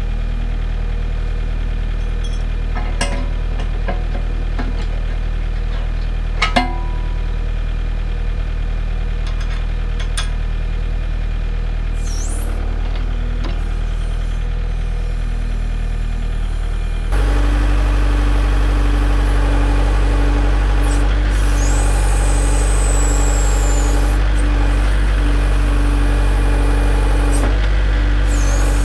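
Kubota L4701 tractor's diesel engine running steadily while the BH92 backhoe is worked. A few metal clanks come in the first half as the bucket is coupled, the loudest about six and a half seconds in. The engine is louder from about seventeen seconds in.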